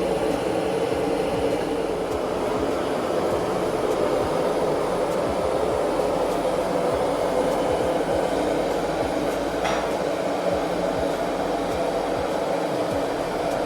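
Blacksmith's forge running: a steady rushing noise, with one brief sharper sound about ten seconds in.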